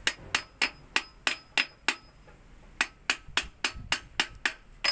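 Hino Dutro 300 differential ring gear and pinion clicking sharply, metal on metal, as the gear is rocked back and forth through its backlash: about three clicks a second in two runs with a short pause between. The clicks show the gear gap, here being set not too tight for heavy loads.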